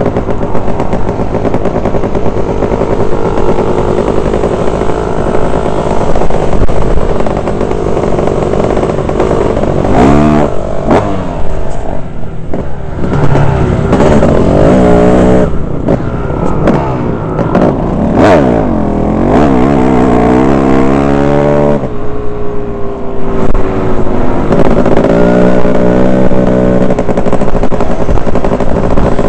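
Dirt bike engine running under an onboard camera, its pitch rising and falling again and again as it revs and shifts through the gears, with other dirt bikes riding close by.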